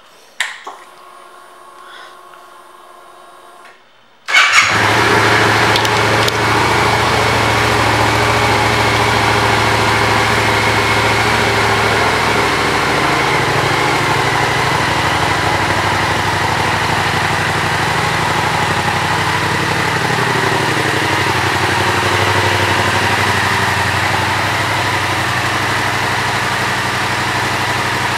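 2015 Yamaha FZ-07's 689 cc parallel-twin engine, breathing through a Yoshimura aftermarket exhaust, starts up about four seconds in after a faint hum, then idles steadily.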